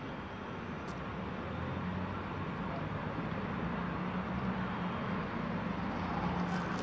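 Steady low engine hum over a background of outdoor noise, growing slightly louder.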